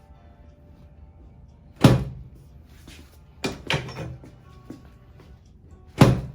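Heavy thumps on a chiropractic treatment table during side-lying adjustments: one about two seconds in, a quick pair in the middle, and another near the end, with soft background music.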